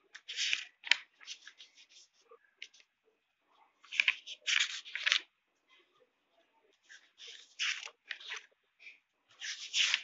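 Pages of a thick paperback textbook being turned and leafed through by hand: paper rustling and flapping in about four quick flurries with short pauses between.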